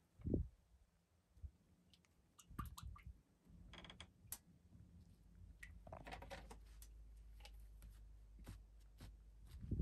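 Faint clicks and small knocks of a plastic bottle of sunflower oil being opened and poured into a large cooking cauldron, with a short cluster of clicks near the middle.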